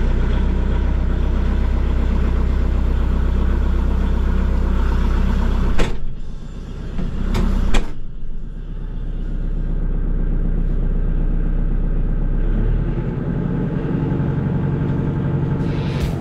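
Kubota MX6000 tractor's diesel engine running steadily just after start-up. There are two sharp knocks, about six and eight seconds in, and after the second one the engine sounds duller.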